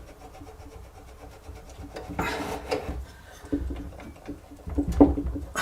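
Drill press's friction chuck being pushed up onto the spindle taper against a block of wood: rubbing and scraping of wood and metal, with a sharp knock near the end as it seats.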